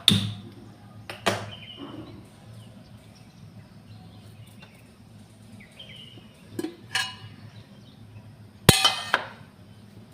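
Metal kitchen utensils and dishes clanking as they are handled and set down: a few separate knocks that ring briefly, the loudest near the end.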